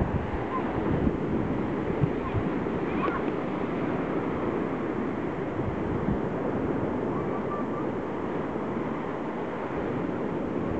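Sea surf breaking on a sandy beach: a steady wash of waves rolling in, with wind buffeting the microphone.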